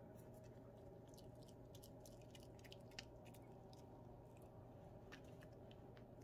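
Pomeranian puppy gnawing a hard treat: faint, irregular little crunches and clicks of its teeth, with one sharper snap about three seconds in, over a steady low hum.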